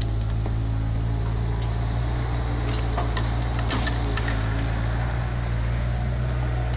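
Diesel engines of a CAT 305 CR mini excavator and a Tatra 815 dump truck running steadily during soil loading, with scattered knocks and clatters from the digging and loading.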